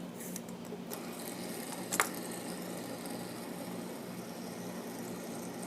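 Quiet steady hum with a single light click about two seconds in, as fidget spinners are handled and stacked.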